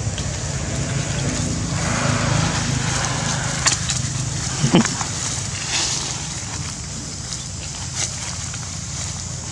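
Steady wind rumble on the microphone, with dry leaves rustling under young long-tailed macaques wrestling on the leaf litter and a few short sharp sounds.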